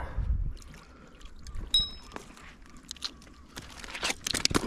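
A freshly landed wrasse flapping on a concrete pier: a quick run of sharp slaps starts about three and a half seconds in. Before it there is a dull rumble of handling and a brief high ping.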